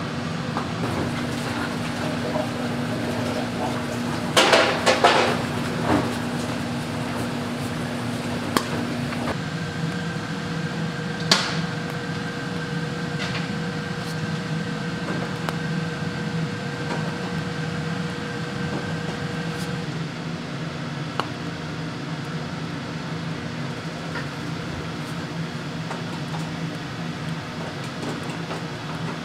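Steady hum of commercial kitchen machinery, with a steady tone that gives way to a higher one about nine seconds in and stops about twenty seconds in. A brief clatter about four to six seconds in, and a few single sharp knocks.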